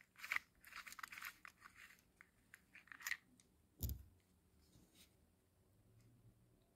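Faint plastic clicks and rattles of a clear compact audio cassette being handled with a ballpoint pen in its hub, with a single soft knock about four seconds in.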